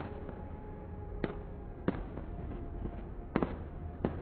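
Fireworks going off: a series of sharp bangs, roughly one a second, including a quick double bang past the middle, over a steady low rumble.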